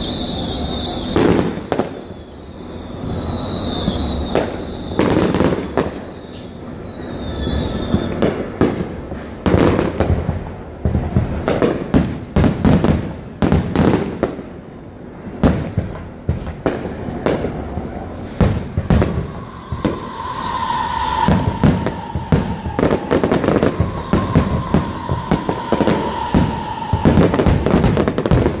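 Fireworks display: aerial shells bang and crackle in a rapid, irregular series. Three short whistles fall in pitch in the first eight seconds. A long steady high tone, slowly dropping in pitch, runs through the last third.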